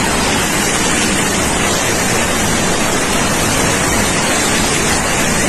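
Violent storm wind: a loud, steady rushing noise with no break.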